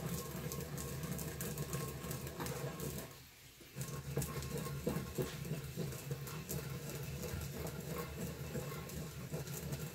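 Sesame seeds being ground in a ridged ceramic suribachi with a wooden surikogi pestle: a continuous scraping, gritty rasp from the pestle working round the bowl, with a brief pause about three seconds in.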